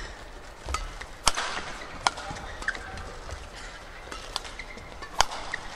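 Badminton rackets striking the shuttlecock in a rally: a few sharp cracks, the loudest about a second in and near the end, with short squeaks of shoes on the court floor.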